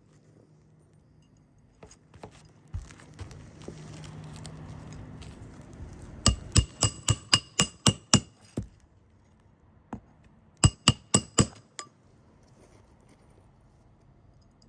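Hammer driving a roofing nail into an asphalt shingle: a quick run of about nine sharp, ringing strikes, then four more a couple of seconds later. A few seconds of scraping come before the strikes.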